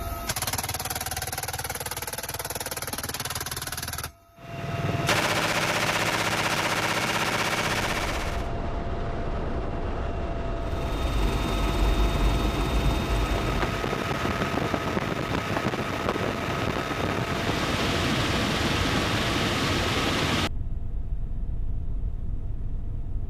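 M134 minigun firing in long continuous streams, each a dense, unbroken buzz rather than separate shots. The sound comes in several cut-together stretches, with a brief drop about four seconds in and a duller, muffled stretch near the end.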